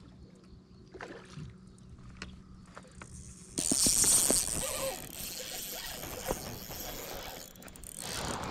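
Faint clicks and knocks around the kayak, then about three and a half seconds in a sudden loud rush of close handling noise with fine ticking as a spinning reel is cranked against a hooked bass.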